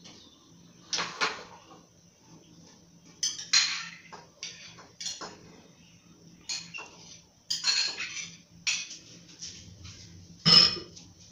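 Metal ladle clinking and scraping against a stainless steel soup pot and a ceramic bowl as soup is stirred and ladled out, about a dozen short knocks and scrapes with the sharpest near the end.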